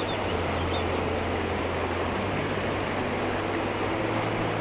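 A river rushing steadily.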